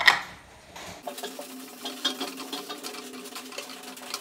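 A metallic clank right at the start, then a spatula stirring and scraping dry spice powder around a metal pan as the masala is roasted on low heat: a quick patter of small scrapes over a faint steady hum.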